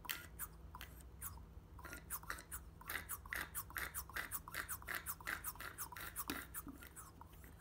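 Hand-squeezed vacuum pump with a gauge, pistol-grip brake bleeder type, pumped over and over, a short click or rasp with each stroke, as it sucks old brake fluid out of a motorcycle brake master cylinder reservoir. The strokes are spaced out at first and quicken to about three a second after a couple of seconds.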